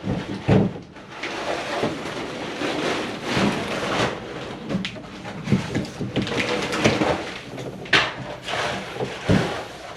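Irregular knocks, clicks and scraping from hands and tools working at a wall switch box and its wiring.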